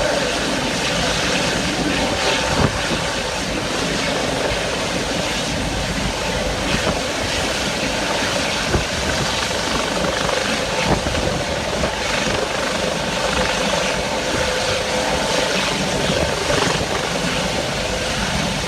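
Helicopter hovering over a ship, its rotor and engine noise running steadily under strong wind, with a few brief knocks.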